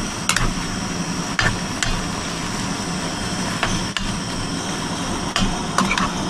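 A cooking utensil stirring chicken and vegetables in a full pan, with irregular sharp clinks and scrapes against the pan every half second to second and a half, over a steady sizzle.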